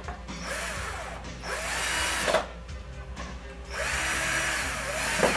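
Cordless drill-driver driving screws into wooden cabinet panels in short runs: a brief faint one, then two longer, louder ones whose motor pitch rises and falls, each cutting off abruptly.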